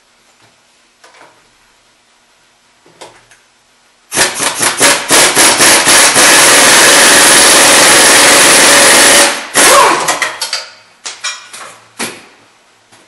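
Pneumatic impact wrench hammering on the top nut of a front strut held in a spring compressor, to take the nut off so the spring can be moved to the new strut. It starts about four seconds in with a few short bursts, runs steadily for about three seconds, then gives several short blips that stop near the end.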